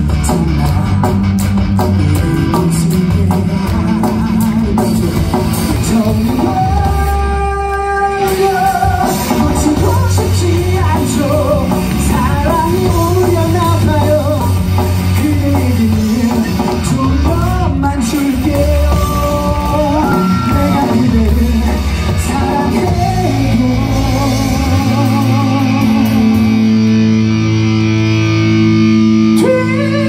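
Male vocalist singing a Korean pop song live into a handheld microphone, backed by a live band of drums and guitars through the PA. Near the end he holds a long note with vibrato.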